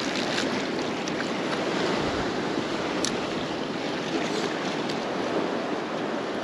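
Lake waves washing steadily against the rocks of a breakwall, with a single sharp click about three seconds in.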